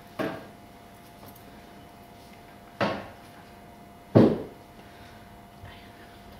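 Three sharp knocks, unevenly spaced, the third the loudest, each dying away with a short ringing tail, over a faint steady hum.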